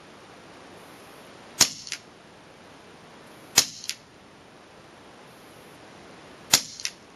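FX Revolution .22 PCP semi-automatic air rifle firing three shots, two to three seconds apart. Each shot is a sharp crack followed about a third of a second later by a fainter second crack.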